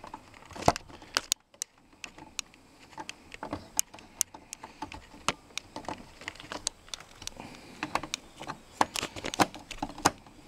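Irregular small clicks and ticks of a screwdriver working the terminal screw of a 20 amp two-pole circuit breaker, with the wire being handled inside the metal breaker panel.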